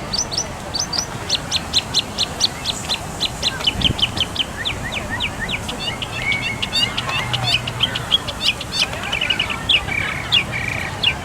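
Birds chirping: a long run of short, high, downward-sweeping chirps at several a second, with other calls and a quick trill mixed in during the second half.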